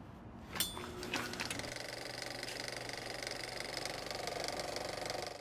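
Two sharp clicks, then a film projector running with a fast, even mechanical clatter that starts about a second and a half in and stops abruptly at the end.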